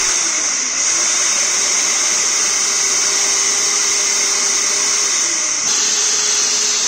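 Electric hand mixer running steadily, its twin spinning beaters whisking two whole eggs in a glass bowl until frothy. The tone shifts slightly near the end.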